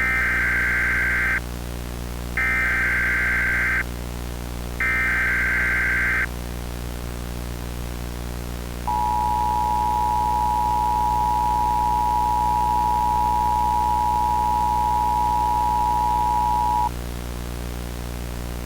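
Three bursts of Emergency Alert System SAME header data, a buzzy electronic screech each about a second and a half long, followed a few seconds later by the EAS two-tone attention signal held steady for about eight seconds. A steady low electronic hum runs underneath.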